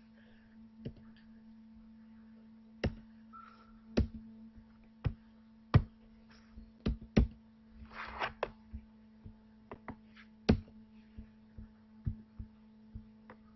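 Scattered sharp clicks and knocks, about a dozen at irregular intervals, over a steady electrical hum.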